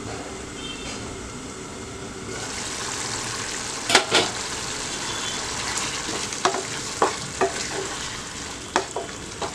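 Chicken liver and gizzard gravy sizzling and bubbling in a covered non-stick pan; the sizzle grows louder a little over two seconds in as the pan is uncovered. Two loud clanks follow about four seconds in, then a wooden spatula stirs the gravy, knocking on the pan several times.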